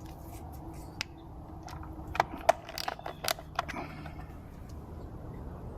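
Sharp clicks and light rattles of a doorbell camera and its small hardware being handled and fitted, one about a second in and a quick cluster between about two and four seconds in.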